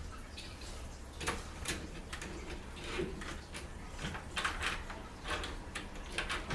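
New doorknob assembly being wiggled and pushed to fit its parts through the latch holes: a string of irregular light clicks and knocks, several to a second at times.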